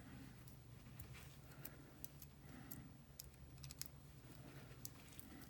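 Faint, irregular light clicks and taps of small metal parts being handled while a wood-bead-maker drill bit's cutter and set screws are adjusted, over a steady low hum.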